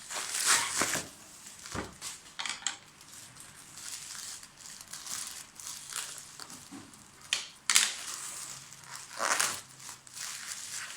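Plastic bag crinkling and rustling in irregular bursts as it is pulled open and worked off a packaged box.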